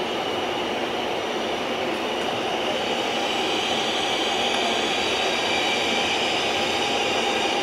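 Intercity passenger coaches rolling slowly past a platform as the train arrives. The sound is a steady rumble with a high squeal held over it.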